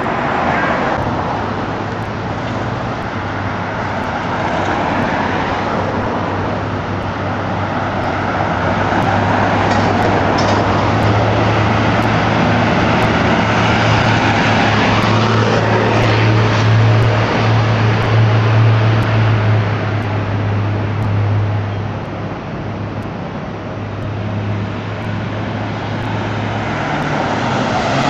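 Urban street traffic: cars and buses running past with a steady low engine hum, growing louder in the middle as vehicles pass close by, then easing off.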